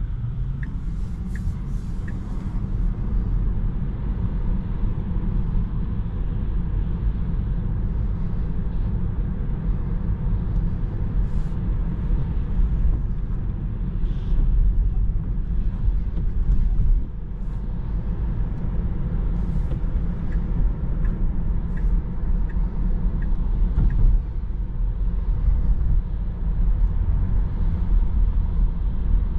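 Steady low road and tyre rumble inside the cabin of a Tesla Model 3 electric car on the move. Short runs of light, evenly spaced ticks come near the start and again about two-thirds through.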